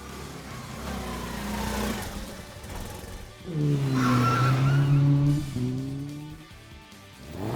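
Car sound effects: a low engine rumble with a slowly rising pitch, then about three and a half seconds in a sudden louder engine note that sags slightly in pitch, with a brief high tyre squeal, fading before the end.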